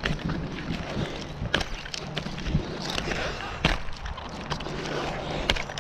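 Wind buffeting the microphone high up a palm trunk, with a few sharp knocks and scrapes as the climber moves against the trunk.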